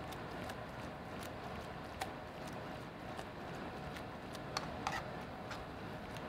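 A few sharp metal clicks from tongs and a stainless sauté pan as spaghetti in sauce is tossed, one about two seconds in and a few more around four and a half to five seconds, over a steady kitchen hiss.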